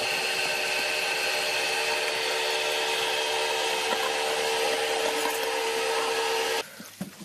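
Electric meat mincer running steadily, its motor giving a constant whine while pork chunks are pushed down the feed throat. It cuts off abruptly near the end.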